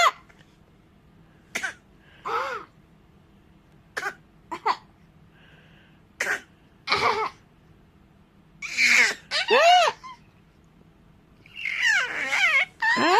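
Playful forced coughs from a young child, short sharp coughs coming in pairs every two to three seconds, some with a high-pitched voiced edge. Near the end a longer voiced sound that slides up and down in pitch.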